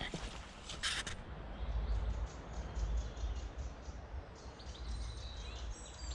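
Small birds chirping and singing, with wind rumbling on the microphone and a short rustling noise about a second in.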